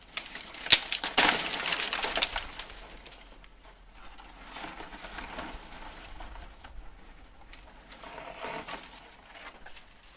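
Dry plant material crackling and rustling, loudest and densest between about one and two and a half seconds in, then fainter, scattered rustles.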